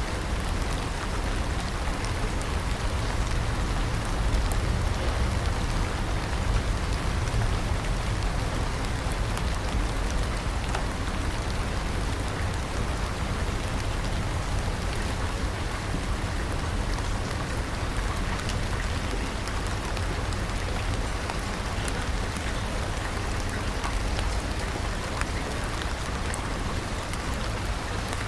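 Steady rain falling, an even hiss with a deep low rumble beneath and faint scattered drop ticks.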